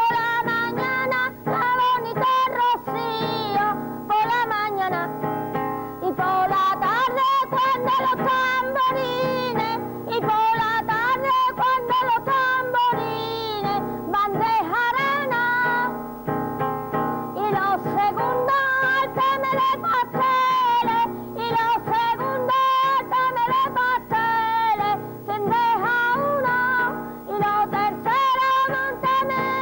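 A woman singing a Spanish song about El Rocío in a strong wavering vibrato, accompanying herself on a strummed acoustic guitar.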